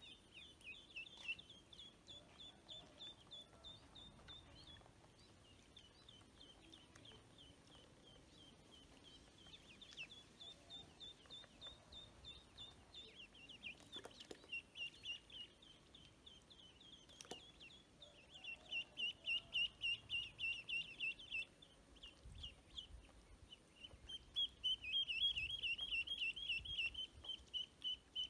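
Ducklings peeping: a steady stream of short, high peeps, which swells into louder, faster runs twice in the second half. A couple of sharp clicks come about halfway through.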